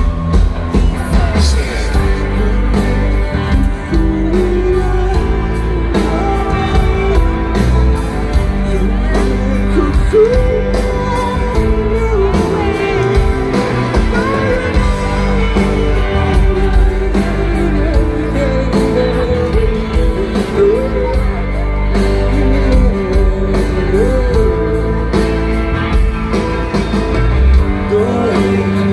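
Live rock band playing with a lead singer: electric guitars, bass and a steady drum beat, heard from within the crowd.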